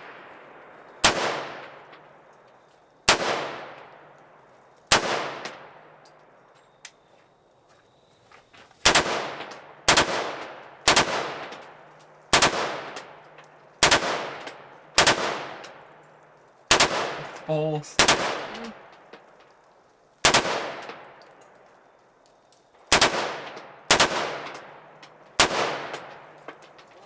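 Rifle fired one shot at a time, about seventeen loud shots in runs roughly a second apart with a few pauses, each shot followed by an echo.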